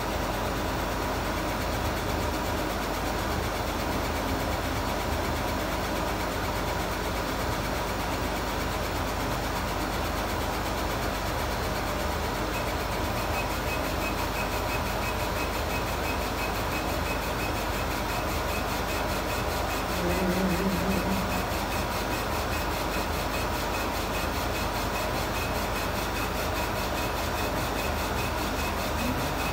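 Laser engraver running while it engraves: a steady hum of its fans, with a whir from the head's motors as it sweeps rapidly back and forth across the plate. A short low tone sounds about two-thirds of the way through.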